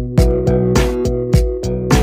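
Background music with a steady beat: sustained instrumental tones over drum hits about twice a second.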